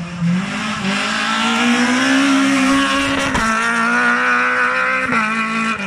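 Rally car engine accelerating hard, its pitch climbing steadily for about three seconds. The tone breaks off sharply and comes back lower, as at a gear change, and breaks briefly once more near the end.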